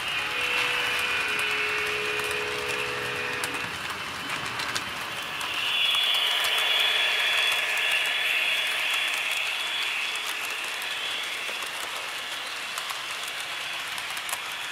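HO scale model freight cars rolling past on the track, their wheels clicking steadily along the rails, with electronic diesel-locomotive sound from the train's QSI sound decoder mixed in. A high hum swells about six seconds in and then eases off.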